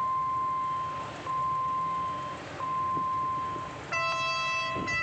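Railway level crossing warning alarm sounding a steady high beep in long pulses with short breaks between them. About four seconds in, a lower horn-like tone with overtones sounds for about a second and stops briefly near the end.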